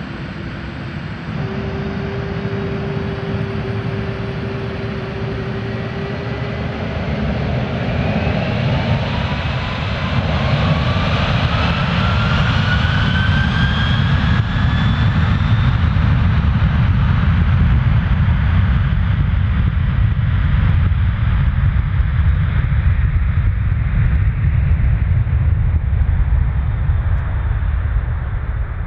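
Airbus A300 turbofan engines spooling up for takeoff. From about eight seconds in, a whine rises in pitch over several seconds as thrust builds. A loud, steady low rumble follows as the jet accelerates away down the runway.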